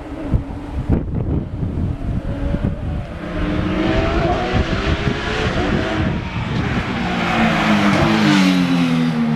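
Wind buffeting the microphone, then a rally car approaching at speed on a tarmac stage. Its engine is held at high revs with rising pitch and growing tyre and road noise, loudest as it passes close about eight seconds in. The engine note drops as it goes by.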